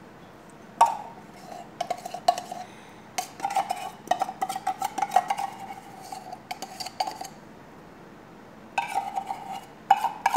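Metal spoon scraping and tapping inside a tin can of condensed milk, emptying it into the salad, the metal ringing with each stroke. It comes in quick runs, with a pause of about a second and a half near the end.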